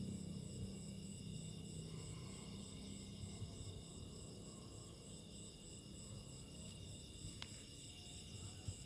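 Faint, steady chorus of crickets chirring, several high pitches pulsing quickly and continuously.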